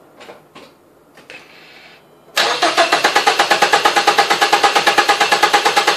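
A few faint clicks, then about two seconds in the Mazda 3's engine starts cranking on the starter motor in an even, rapid chug of about eight to ten pulses a second. It turns over without catching, being cranked for a compression test on cylinder three, which reads 160 psi.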